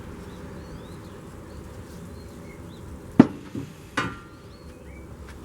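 Three sharp knocks a little past the middle, the first the loudest and the last ringing briefly like struck metal, over a steady outdoor background.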